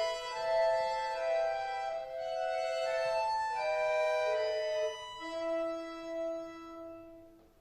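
Bayan (Russian button accordion) playing a slow folk melody in held, sustained notes over chords. The phrase dies away to near silence near the end.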